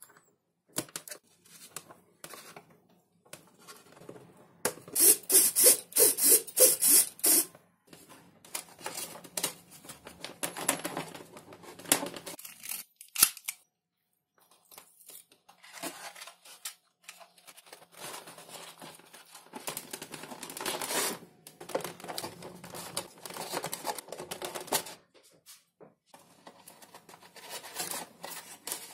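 Close-up handling sounds of a foam RC plane being assembled by hand: small clicks, taps and scratchy rustling of foam and plastic parts. A dense run of fast, loud scratching strokes comes a few seconds in, then the handling continues in bursts with quiet gaps between.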